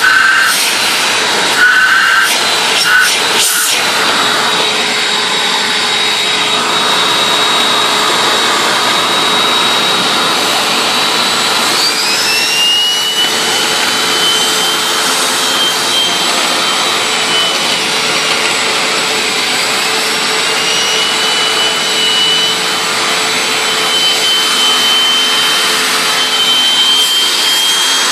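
Hoover WindTunnel Anniversary Edition self-propelled upright vacuum running, a loud steady motor and airflow rush. A high whistle in it glides up and down a few times, and a few knocks come in the first few seconds.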